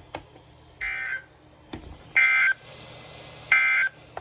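Three short, raspy bursts of EAS SAME digital data tones, evenly spaced about a second and a half apart, the first quieter than the other two: the end-of-message code that closes an emergency alert broadcast.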